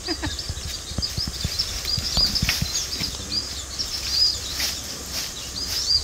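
Small birds chirping rapidly and repeatedly, with scattered short crackles of dry leaf litter, the loudest about two and four seconds in.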